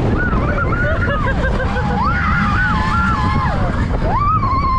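On board the Seven Dwarfs Mine Train roller coaster: a steady rumble of the running train and the wind, with riders screaming over it in several long, high, wavering shrieks.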